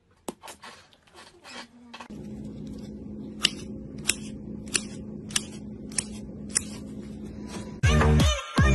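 Metal scraper cutting and lifting thick slime out of a plastic tub: sharp clicks about every two-thirds of a second over a steady low hum. Loud electronic dance music cuts in near the end.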